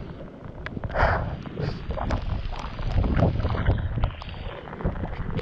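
Wind buffeting the microphone in an open boat, an uneven low rumble that swells about a second in and again around three seconds, with scattered small clicks and knocks.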